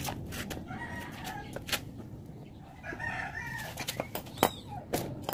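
A bird calling twice, once about a second in and again about three seconds in, with scattered sharp clicks and knocks. The loudest knock comes about four and a half seconds in.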